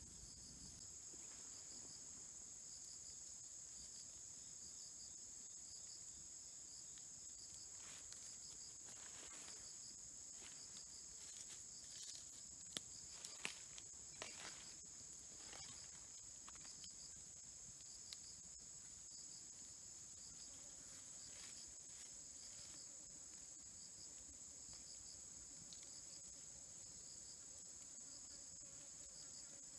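Insects chirring steadily at a high pitch, with a few soft knocks and rustles around the middle.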